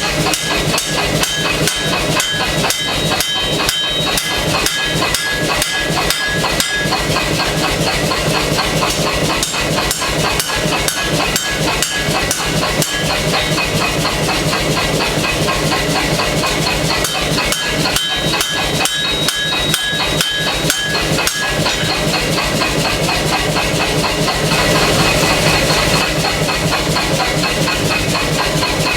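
Air hammer pounding hot steel in a fast, steady rhythm of about four to five blows a second, with a high ringing from the metal at times and a steady hum underneath.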